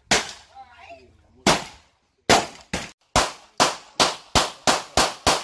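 Gunshots on a firing range: a few single shots about a second apart, then from a little past two seconds a quick, even string of shots, two or three a second.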